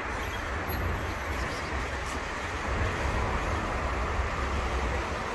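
Steady low rumble with a hiss of outdoor background noise, without any meowing.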